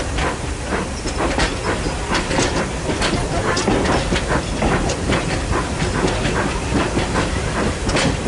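A heritage railway train in motion: a steady rumble with many irregular clicks and knocks from the wheels and running gear.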